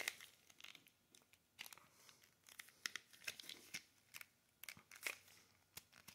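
Faint, scattered clicks and crinkles of a small white box being squeezed and worked by hand to slide it open.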